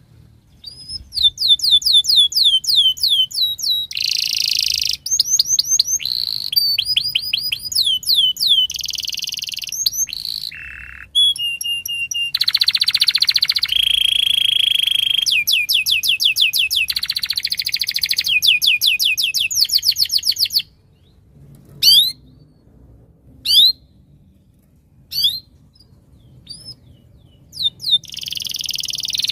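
Domestic canary singing a long song of fast trills, each a rapid run of falling notes, with buzzy rolls and a steady held whistle mixed in. About two-thirds through the song breaks off, leaving only a few short chirps, then starts again near the end.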